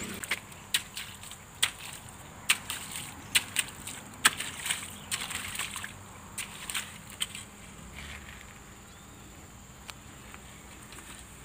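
Hoe blade chopping and scraping through wet clay mud and shallow water while digging a drainage channel, a series of sharp, irregular knocks in the first several seconds, then quieter scraping.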